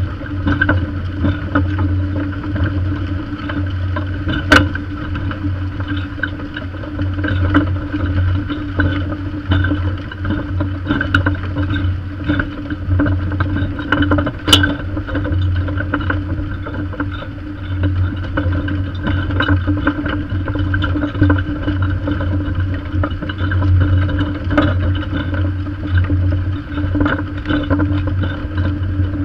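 Steady running noise of a Massey Ferguson 7485 tractor working a Lemken plough and Vario Pack press through the soil: an even engine drone with the rattle of the press's packer rings, and two sharp clanks, a few seconds in and about halfway through.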